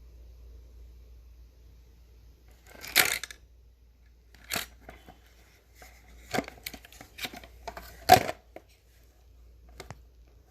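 Handling noise from an opened antenna unit being moved about: a rustle about three seconds in, then scattered sharp clicks and knocks over the next several seconds.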